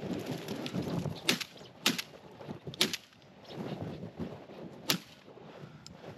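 Four sharp shotgun shots spread over about four seconds, the third the loudest, fired at flushing chukar partridges. A rough rustling fills the gaps between the shots.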